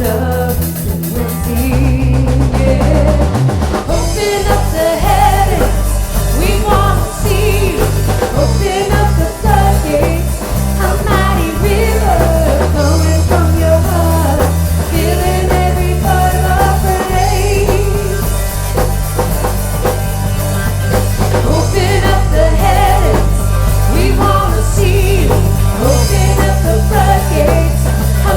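Live band playing a song: a singer over drum kit and steady held bass notes.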